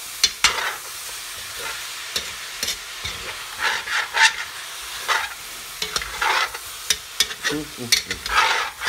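Spatula scraping and stirring pork and chopped vegetables against the bottom of a cast iron pot over a steady sizzle of frying, in irregular strokes, working loose the browned bits stuck to the pan.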